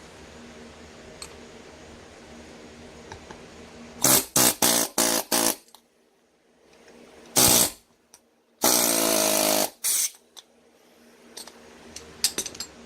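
Hammer tapping on the yoke ear of a motorcycle driveshaft universal joint: a quick run of about five sharp metal taps, a single strike a couple of seconds later, then a louder sound lasting about a second. The tapping frees up a freshly installed U-joint that feels tight.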